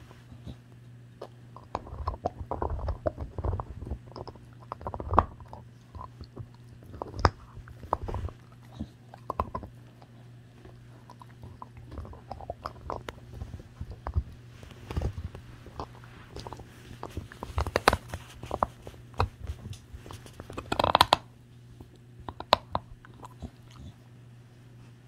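A dog gnawing a raw marrow bone close to the microphone: irregular crunches, clicks and wet chewing, with a louder burst of crunching about 21 seconds in. The chewing stops shortly before the end.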